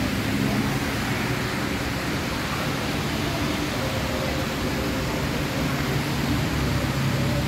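Steady background hiss with a low rumble underneath and no distinct events: the ambient noise of a covered pedestrian walkway.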